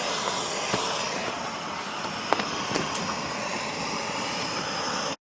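Propane torch running with a steady rushing hiss while thawing frozen sawdust and snow off a sawmill track, with a few faint clicks over it. It cuts off abruptly near the end.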